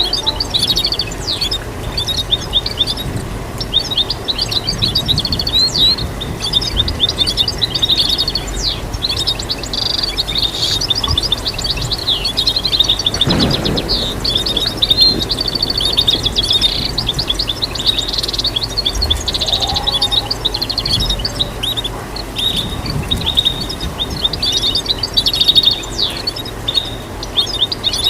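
Goldfinch singing a fast, unbroken twittering song of high chirps and rapid trills. A brief low whoosh cuts in about halfway.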